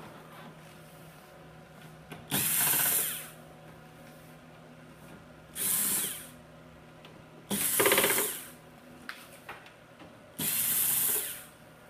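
Cordless power screwdriver running in four short bursts of about a second each, backing screws out of a TV backlight module's frame.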